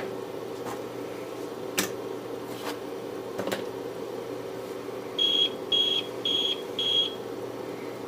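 APC Back-UPS 1000XL beeping its alarm four times in quick succession, short high-pitched beeps about half a second apart: four beeps is the APC signal for running on battery. Under it a steady low hum from the unit, with a few light clicks earlier on.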